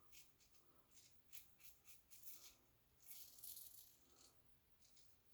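Faint, scratchy strokes of a Carbon safety razor cutting stubble during touch-up shaving: several short strokes, then a longer one about three seconds in.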